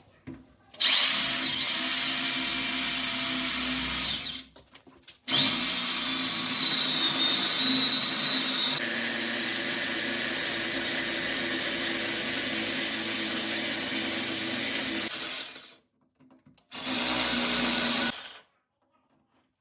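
A power drill cutting a hole for air conditioner installation runs in three bursts: a short one, a long one of about ten seconds, then a short one. Each starts with a rising whine as it spins up.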